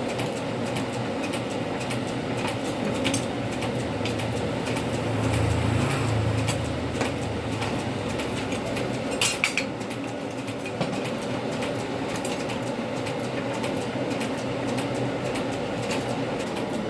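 A steady machine drone with a low hum, broken by a few sharp metallic clinks, a cluster of them about nine seconds in.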